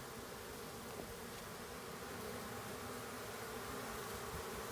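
A honey bee swarm humming steadily, the even buzz of many bees in flight around a clustered swarm.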